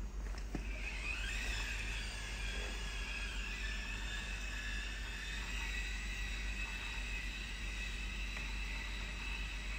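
Drain inspection crawler's electric drive motors and gearing whining as it drives forward; the whine rises in pitch about a second in as it gets going, then holds steady.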